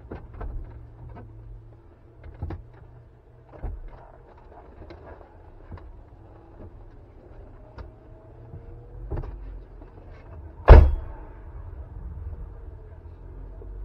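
Scattered knocks, clicks and rustles as the driver shifts about and climbs out of the car's racing seat, over a low steady hum. One sharp, loud bang comes about ten and a half seconds in.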